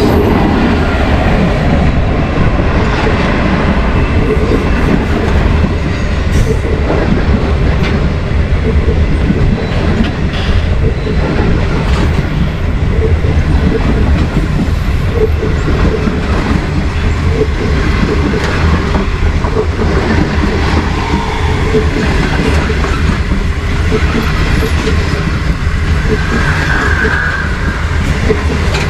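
Railway cars rolling past close by: a steady rumble and rattle of steel wheels on the rails, with a brief high wheel squeal near the end.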